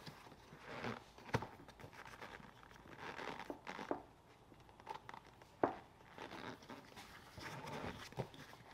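Hands rustling a replacement leather seat cover while its clips and brackets are pushed onto a truck seat-back frame, with scattered sharp clicks, two of them louder than the rest.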